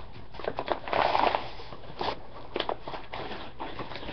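Flour being scooped with a measuring cup: a soft rustle about a second in, with a few light clicks and taps of the cup and utensils.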